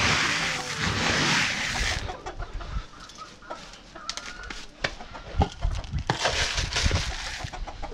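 Hens clucking, with scattered knocks and taps. For about the first two seconds a loud rushing rustle covers everything, then stops suddenly.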